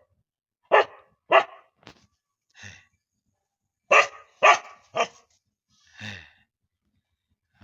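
A dog barking in short, sharp barks: two close together in the first second and a half, then three in quick succession about four seconds in, with a few fainter barks between and after.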